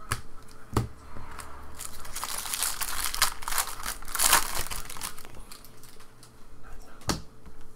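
Foil wrapper of a Bowman Draft jumbo card pack crinkling and tearing as it is ripped open, a few seconds of dense crackle loudest near the middle. A few sharp clicks of cards being handled come before and after.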